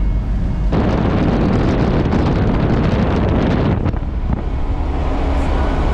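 Land Rover Defender driving, a steady low engine and road rumble, with wind buffeting the microphone loudly from about a second in until about four seconds in.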